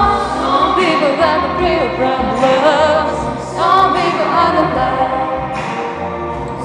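A girl singing a song into a handheld microphone over music with a steady low bass, her held notes wavering with vibrato.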